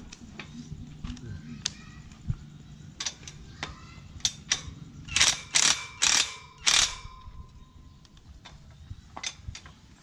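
Cordless impact wrench hammering a nut onto a steel implement frame in four short bursts in the middle, between scattered clinks and taps of metal parts.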